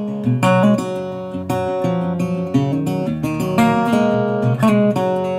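Music: acoustic guitar strumming chords in a steady rhythm, a strum about every half second.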